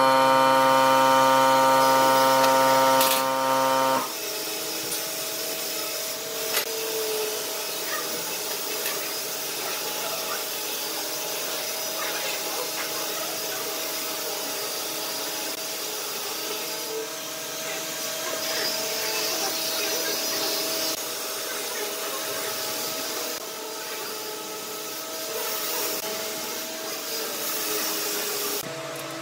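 Pencil scratching marking lines on a round wooden log, with steel rule and square sliding and tapping on the wood, over a steady electrical hum. A louder droning hum stops suddenly about four seconds in.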